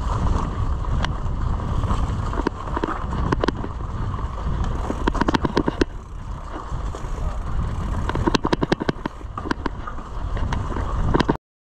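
Mountain bike ridden over a dirt trail: steady wind rumble on the microphone with rattling clicks from the bike over bumps, thickest about five and eight to nine seconds in. The sound cuts off suddenly near the end.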